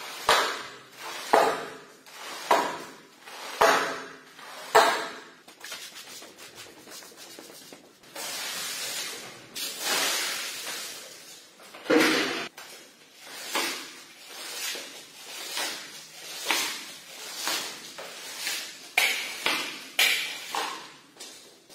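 A broom scrubbing a soaked shag rug and pushing dirty water across a tiled floor in regular wet swishing strokes, about one a second. Midway, a few seconds of water splashing down onto the rug.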